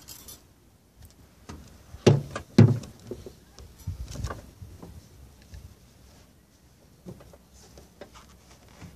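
Car rear seat cushion being lifted out and handled: a series of hollow thumps and knocks, the two loudest close together about two seconds in, with softer bumps later.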